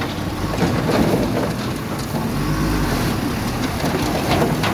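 Engines of heavy road-construction machinery running, a steady low rumble with a few scattered clanks.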